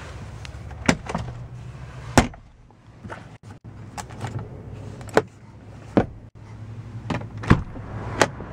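Sharp plastic clicks and knocks of a car's interior fittings being worked by hand: the glovebox, the sun visor's vanity-mirror cover and the inside door handle. There are about seven separate clicks, spaced a second or so apart, over a low steady hum.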